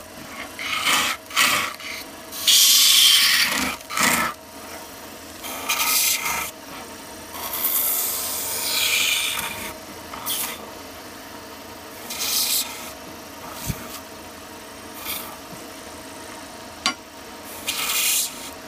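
Turning chisel cutting into a pale wood blank spinning on a lathe, in repeated hissing, scraping passes of a fraction of a second to about two seconds each. A sharp click comes twice, once near the middle and once near the end.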